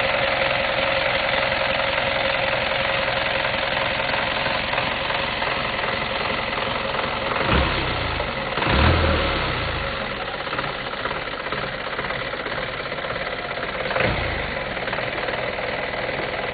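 Bus engine idling steadily, with a few dull low thumps about halfway through and near the end.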